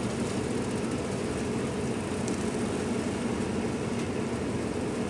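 Steady low drone of a passenger ship's machinery heard inside the vessel while it is underway, an even hum with a couple of held low tones.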